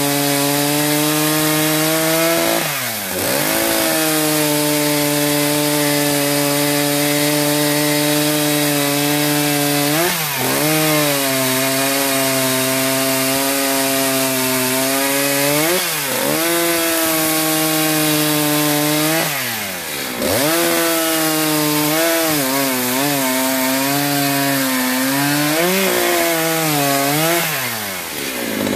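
Echo CS-590 two-stroke chainsaw running at full throttle, cutting through a walnut log. The engine note holds steady in the cut, dips sharply and climbs back about five times, and drops away near the end as the bar comes out of the wood.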